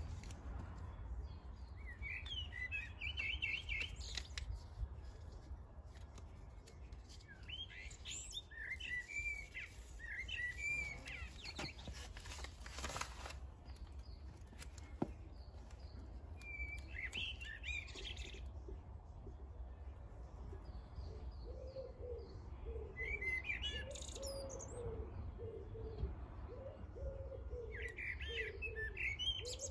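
Songbirds singing in short high phrases every few seconds over a low steady rumble. From about two-thirds of the way through, a low repeated cooing joins in.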